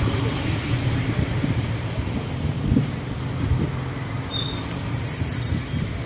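Road traffic noise: a steady low rumble of vehicles.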